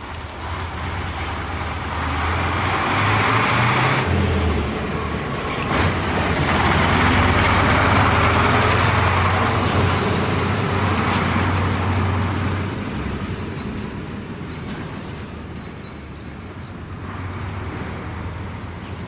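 Motor vehicles passing on the street, engine hum and tyre rush swelling twice, the second pass louder and longer, then fading away.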